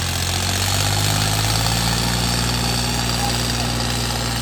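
John Deere 5210 tractor's diesel engine running steadily under heavy load, its pitch edging up slightly about a second in, while the rear tyres slip.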